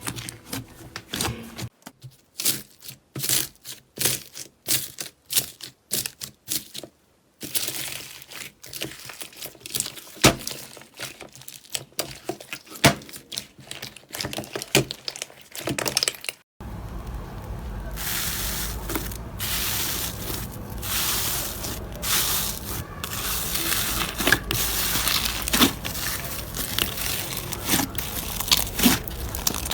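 Slime being pressed and pulled, giving a run of crackling and popping clicks. About halfway through there is a break, followed by denser crackling over a steady hiss.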